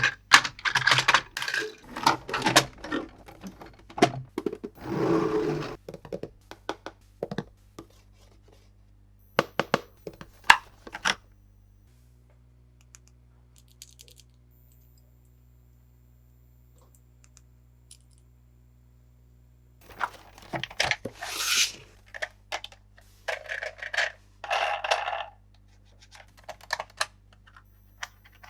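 Toy packaging being handled and opened: a run of sharp clicks and taps with short bursts of packaging rustling and crinkling, and a quiet pause of several seconds in the middle.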